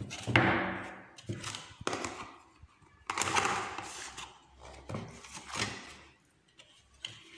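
An aluminium loaf pan is handled, flipped and set upside down on a plastic tray to turn out a baked cake: several knocks and thunks, with a longer rustling, scraping stretch about three seconds in.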